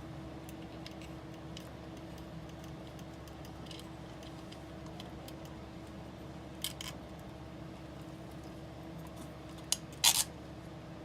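Small nut being worked off a bolt on a scale RC truck's suspension: faint scattered metal ticks and taps of parts and a small tool, with a few sharp clicks near the end, over a steady background hum.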